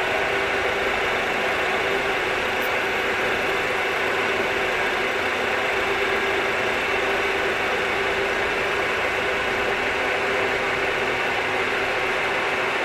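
Milling machine running steadily, a constant mechanical hum with a steady tone and no change in speed.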